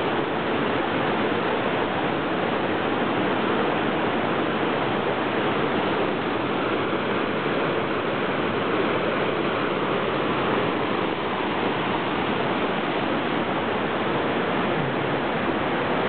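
Steady rush of a mountain creek cascading over granite in small whitewater falls, unbroken and fairly loud.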